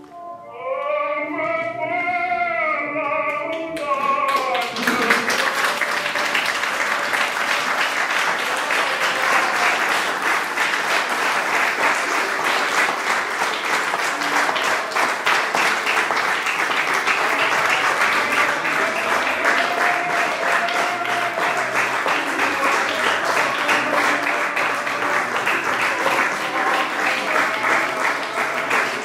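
Voices singing for the first few seconds, then an audience applauding steadily from about four seconds in, with music still playing faintly underneath.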